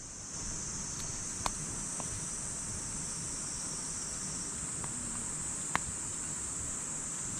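Steady high-pitched chorus of summer insects, with a few sharp clicks, the loudest about a second and a half in and near the six-second mark.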